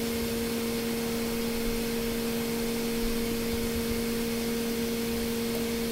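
Electric coil-bending machine's motor running idle with a steady two-note hum and a light even hiss, no bend underway.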